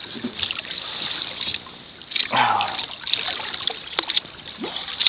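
Water splashing and sloshing against the side of a boat, with a louder splash a little over two seconds in.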